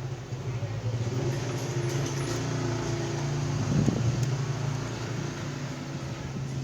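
A steady low mechanical hum, like a motor running, with a faint higher tone over it, swelling slightly midway and easing off.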